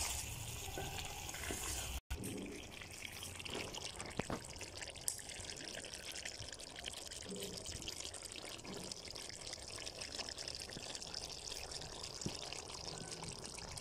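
Cauliflower-and-chicken curry sizzling steadily as it fries in an aluminium pot, a continuous hiss with faint crackles. A wooden spatula stirs through it at the start, and the sound drops out briefly about two seconds in.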